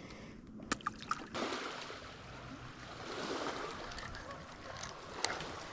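Water lapping and splashing against a boat, with a few sharp clicks about a second in and another near the end.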